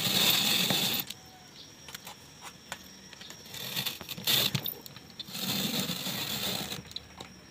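Hand-cranked rotary drum grater shredding a carrot: a rasping scrape of carrot against the turning grating drum, coming in spells: for about the first second, briefly near the middle, and for a couple of seconds near the end. Between the spells there are light clicks.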